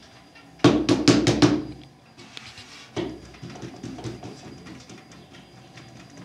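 A quick run of about five sharp knocks or slaps within a second, then softer scattered tapping and handling noise.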